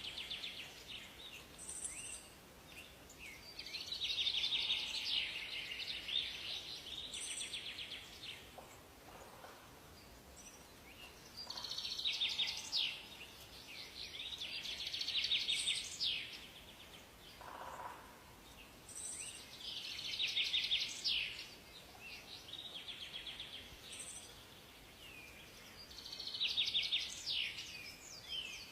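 Songbirds singing in a forest: phrases of quick, chattering notes about two seconds long, repeated every few seconds, with short high chirps between them over a faint steady background.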